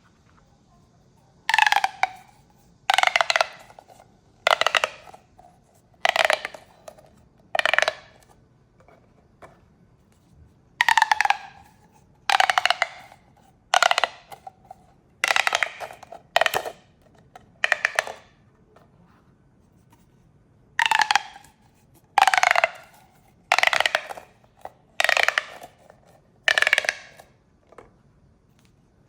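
Plastic pop tubes being stretched and squashed, each pull giving a short run of quick clicks as the ridges snap, with a falling tone. About sixteen pulls, roughly one every second and a half, with a pause of about three seconds midway.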